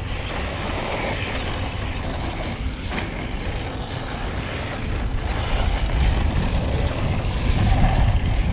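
Arrma Senton 4x2 Boost RC short course truck driving on a dirt track, its brushed electric motor whining over a heavy low rumble that grows louder in the second half.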